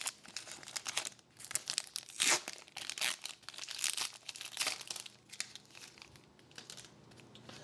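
Hockey card pack wrapper being torn open and crinkled by hand, in irregular crackles, loudest about two seconds in and again around three to four seconds, thinning out near the end.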